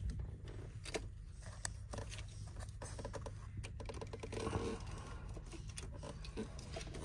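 Small, irregular clicks and light scraping from hands handling the wires of a car's wiring harness during a splice repair, with a quick run of clicks about three and a half seconds in.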